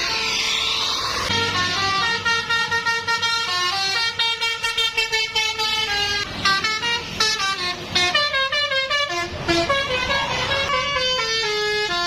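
Basuri multi-tone 'telolet' bus horn playing a quick, tune-like run of notes that changes pitch in steps, with a short noisy rush in the first second.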